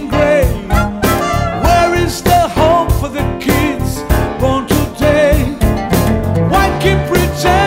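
A song: a man singing over a band with a steady drum beat.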